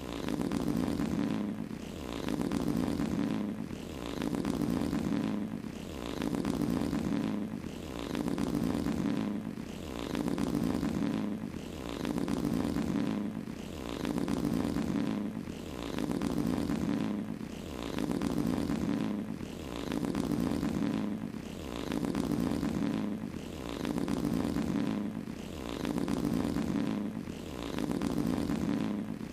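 Long fart sound effects, low and buzzy, each lasting about a second and a half, repeating roughly every two seconds with a short gap between them.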